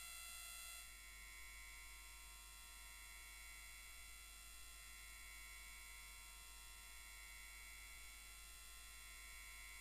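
Near silence: only a faint, steady electrical hum and whine from the recording, with a slight change in its tone about a second in.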